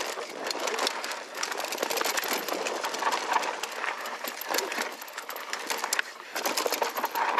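Mountain bike riding down a rough dirt trail: tyres rolling over dirt and rock, with dense rapid clicking and rattling from the bike.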